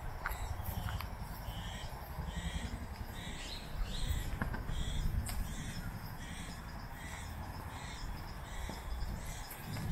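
Forest ambience: a bird calling with a short note repeated roughly once a second, over a steady low rumble and a few faint clicks.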